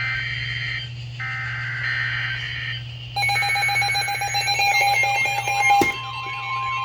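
Emergency Alert System SAME header data bursts from NOAA Weather Radio, a harsh two-pitch digital buzz heard twice, opening a new severe thunderstorm warning. About three seconds in, an alert receiver's alarm starts beeping and warbling. Near the end a steady warning tone sets in.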